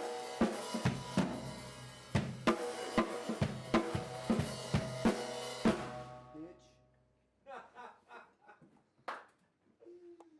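Live rock band ending a song: drum kit hits over sustained guitar and bass chords, stopping about six seconds in, with the last chord dying away. Faint scattered voices and knocks follow.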